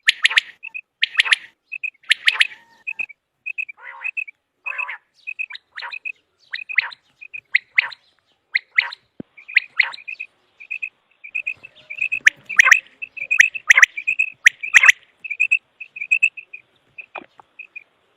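Common quail calling over and over: quick runs of short, high clipped notes, broken about once a second by louder, harsher notes that grow strongest in the latter half.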